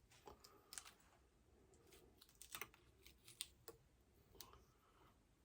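Faint, irregular small clicks and taps of tools and parts being handled during a smartphone repair, the loudest a little past halfway.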